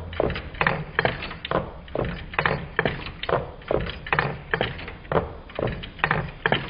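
Twin-cylinder Meccano Stirling engine running, its displacers knocking as they land at each end of their travel, with the clatter of the Meccano linkage: an even rhythm of about two knocks a second.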